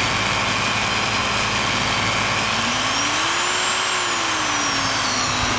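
Milwaukee 4204-1 electromagnetic drill press motor running free with no load, over a steady low hum. Its pitch climbs about halfway through and then falls back toward the end as the variable speed is turned up and back down.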